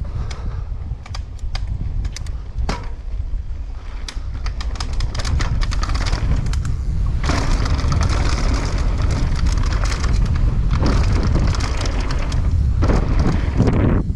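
Mountain bike ridden fast on a loose dirt-and-gravel trail: wind buffeting the camera's microphone, sharp rattles and knocks from the bike over bumps, and the tyres' rough crunching on gravel, which gets louder about five seconds in.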